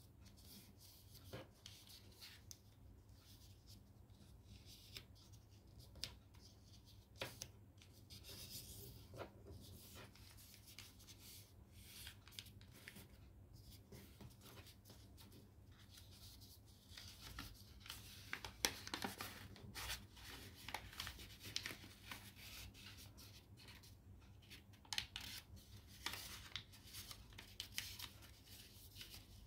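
Origami paper being folded and creased by hand: soft rustling and crinkling as fingers slide along the folds, with scattered sharp clicks, busier in the second half.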